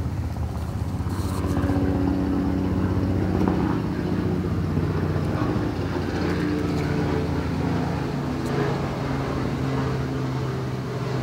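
An engine running steadily, a low hum whose note shifts slightly about halfway through.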